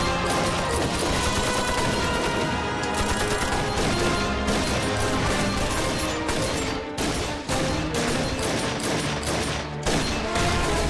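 A dense exchange of gunfire, many shots in quick succession, with pistols firing among them, over dramatic background music.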